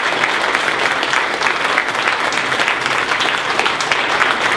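Audience applauding: dense, even clapping of many hands.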